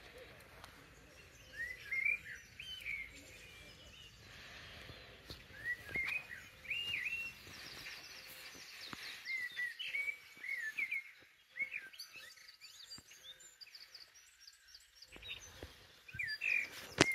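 Birds singing: short chirping phrases repeated again and again.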